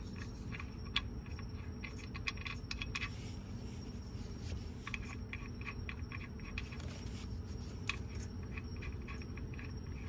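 Small metallic clicks and taps of the oil drain plug and its washer being threaded back into the oil pan by hand, over a steady low hum and a faint high whine.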